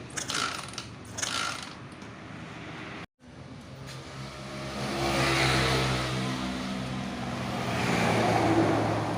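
A few mechanical clicks and rattles, then a Honda motorcycle engine running, swelling louder twice: the engine that had been dead is running again.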